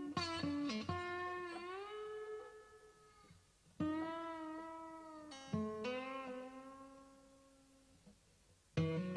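Background music: slow guitar notes plucked in small groups every few seconds, each ringing out and fading away, some sliding up in pitch as they ring.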